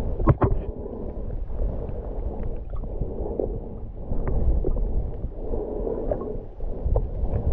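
Muffled underwater sound from a camera held below the surface: a low, steady rush of moving water with scattered small clicks, and two sharper knocks just after the start.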